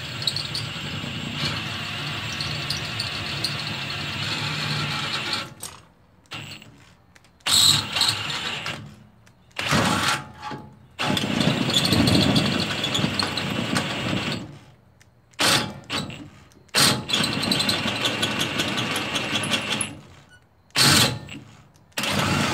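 Cordless drill boring through a steel tab, drilling out a pre-drilled hole. It runs steadily for about five seconds, then in a string of shorter trigger bursts with brief pauses between them.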